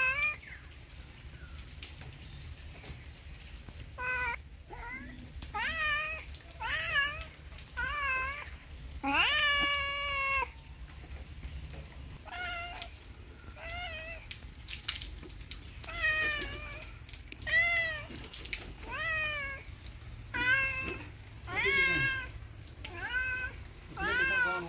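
A cat meowing over and over, about twenty meows, each rising then falling in pitch, starting about four seconds in, with one longer meow about ten seconds in.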